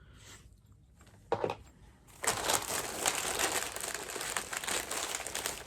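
Crinkling of a mystery pin blind bag's packaging being handled and opened, starting about two seconds in and continuing steadily, with one short soft sound just before it.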